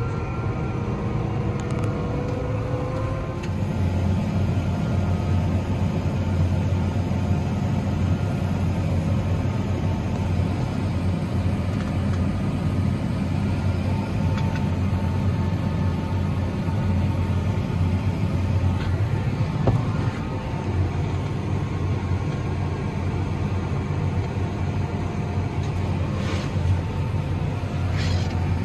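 Tractor engine running steadily under load, heard from inside the cab as it pulls a grain cart beside a combine in a corn field. It gets a little louder about four seconds in.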